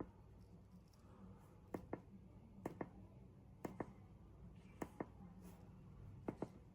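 Faint clicking of a button on a portable jump starter's control panel, pressed about once a second, each press a quick double click, as its air-compressor presets are stepped through.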